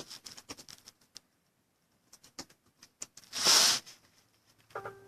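Scattered light taps and clicks of someone typing a message, with a short hiss about three and a half seconds in and a brief faint hum near the end.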